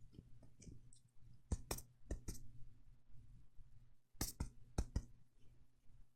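Fingertips tapping, as in direct percussion of the chest during a doctor's examination: irregular soft taps, several coming in pairs.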